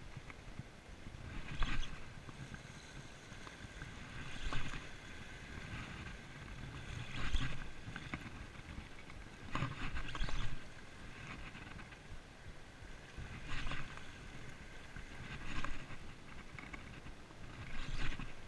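Small waves washing in at the shoreline, a surge of water noise every two to three seconds over a steady hiss.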